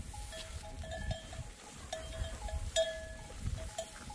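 Bells worn by a flock of sheep clanking irregularly as the animals move and graze, several bells at slightly different pitches, over a low rumble.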